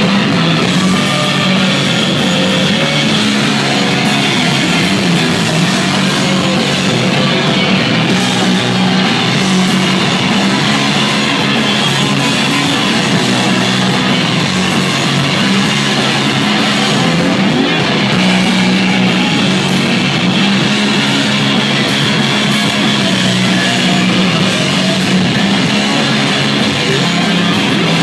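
Live rock band playing loud and without a break: electric guitar over a drum kit.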